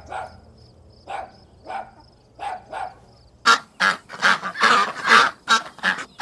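Ducks quacking: single short calls every half second or so, then a louder, rapid string of quacks from about three and a half seconds in.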